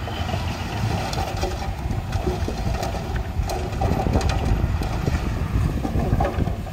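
Heavy-equipment diesel engine running steadily, with scattered short clanks.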